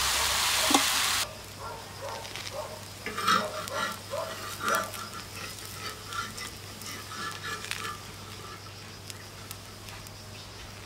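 Crepe batter sizzling with a loud, even hiss on a hot domed saj griddle over coals, cut off abruptly about a second in. Then a flat metal spatula scrapes and pushes the batter across the griddle's iron surface in short irregular strokes, over a faint sizzle.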